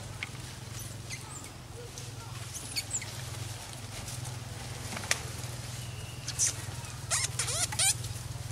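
Monkeys, likely macaques, giving short high squeaks and chirps now and then, with a quick run of squeals about seven seconds in, over a steady low hum.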